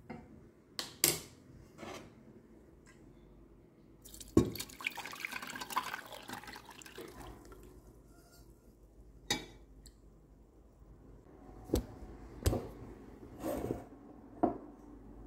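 Steeped herbal tea poured from a steel pot through a fine mesh strainer into a glass jug, a rushing pour of about three seconds starting some four seconds in. Before and after it come separate knocks and clinks of the metal strainer, pot and glassware being handled and set down.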